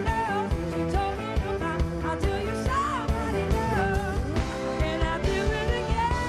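Blues-rock band playing: drums, bass, keys and electric guitar, with a lead melody that bends and slides, then holds a long note near the end.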